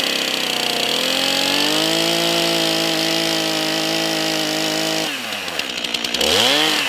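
Stihl two-stroke chainsaw cutting a notch into a debarked log at full throttle, then dropping to idle about five seconds in and revving up and down once briefly near the end.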